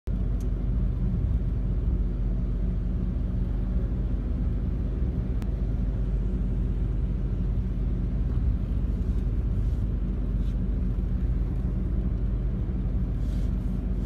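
Steady low rumble of a moving vehicle heard from inside the cabin, engine and road noise with no change in pace.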